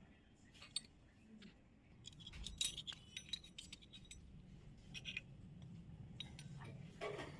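Small pieces of a miniature toy kitchen set being handled, with light clicks and clinks. A quick cluster of them comes about two to three and a half seconds in, with a few single taps before and after.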